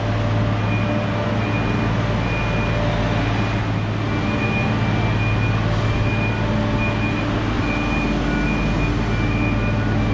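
Travel lift (mobile boat hoist) running steadily as it carries a yacht, a loud low engine hum, with its warning beeper sounding a high beep that repeats over and over.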